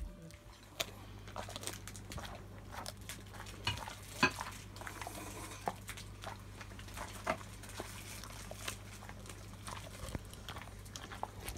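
Golden retriever crunching and chewing a dried, puffed pig-snout treat, with irregular crackly crunches throughout, over a steady low hum.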